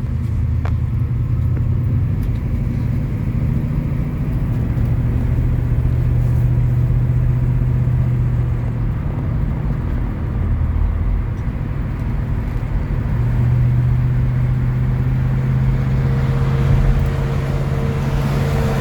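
1966 Ford Thunderbird's V8 and tyres at highway speed: a steady low engine drone with road noise.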